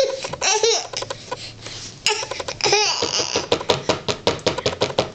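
Laughter: a couple of short vocal sounds, then from about three seconds in a fast, regular run of ha-ha pulses.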